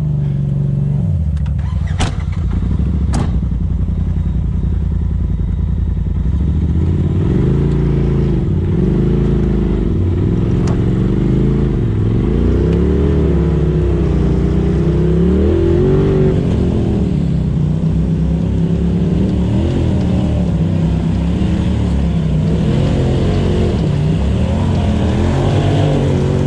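Polaris RZR side-by-side's engine working under load as it crawls up a rocky trail towing a disabled machine, revving up and falling back again and again. There are two sharp knocks about two and three seconds in.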